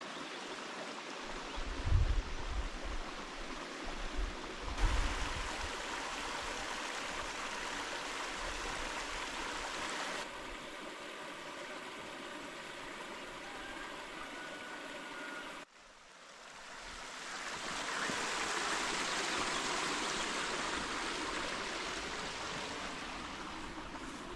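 A stream running, a steady rush of water whose level and tone shift abruptly three times, with a few low thumps in the first five seconds.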